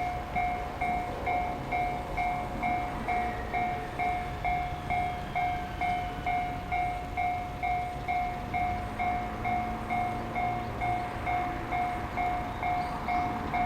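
Japanese railway level-crossing warning bell ringing 'kan-kan' steadily, about two strokes a second, with a train running past underneath it.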